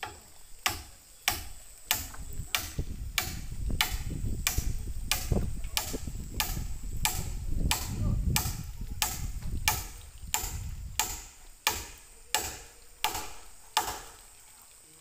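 Steady hammering on the roof framing: sharp, evenly spaced hammer blows, roughly three every two seconds, that stop about a second before the end.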